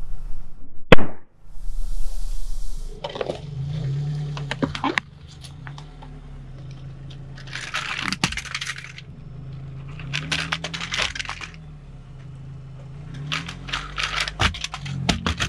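Car tyre slowly rolling onto a plastic toy and crushing it: several bursts of cracking and snapping plastic, over the steady low hum of the car's engine. A single very loud pop about a second in.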